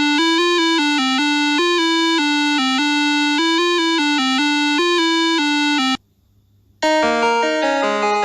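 Electronic synth music: a bright, keyboard-like melody of short, steady notes that stops about six seconds in. After a brief silence a different synth tune starts, with stepping notes.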